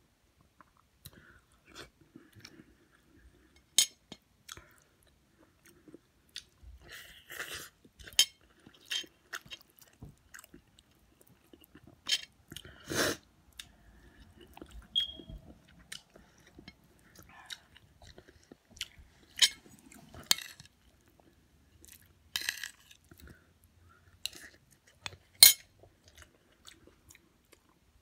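Close-miked chewing with wet mouth smacks and sharp lip clicks, coming irregularly; a few smacks stand out much louder than the rest.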